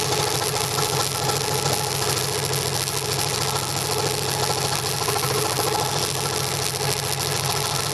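Electric scroll saw running steadily, its blade moving rapidly up and down and working through a piece of wood.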